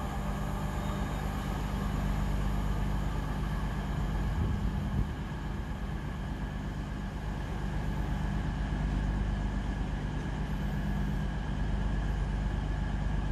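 Steady low rumble of a container freight train running along the line through the station.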